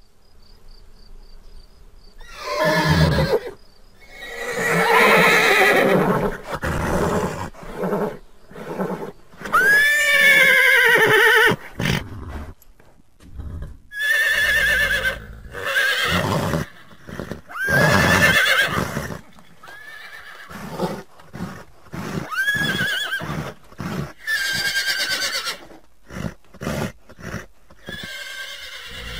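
A horse neighing again and again: a series of loud whinnies a few seconds apart, several with the pitch sweeping up and then falling away, with short sharp sounds in between.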